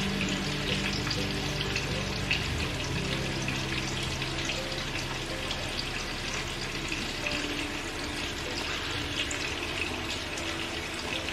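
Marinated chicken drumsticks sizzling in shallow oil in a frying pan on a low flame, a steady sizzle with small crackles and pops of spattering oil, as the first side cooks.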